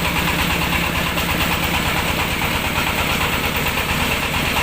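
Engine-driven mobile rice mill running steadily: an even engine drone with a fast regular pulse and a steady high hiss above it.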